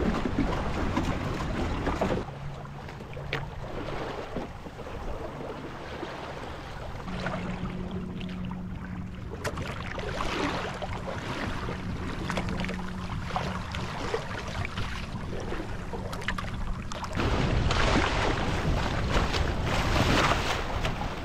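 Water rushing and splashing along the hull of a small sailing dinghy under way, with wind buffeting the microphone. The sound is quieter through the middle, with a faint steady low hum and scattered small splashes and knocks, and is loud and blustery again near the end.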